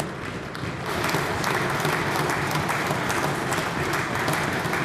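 Members of a legislative chamber applauding: a dense crowd of hand claps, briefly softer at the start, then steady.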